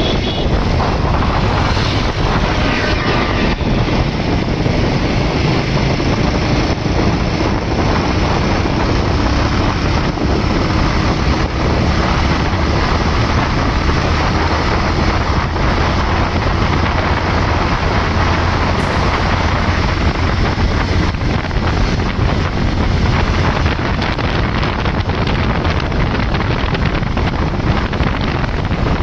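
Bajaj Avenger motorcycle riding at highway speed, heard as a loud, steady rush of wind buffeting the microphone with the engine and road noise beneath it.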